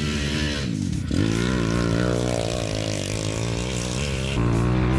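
Zongshen ZS190cc single-cylinder four-stroke engine of an off-road shifter kart revving up and down as the kart is driven hard across grass. About a second in the revs drop sharply and climb again.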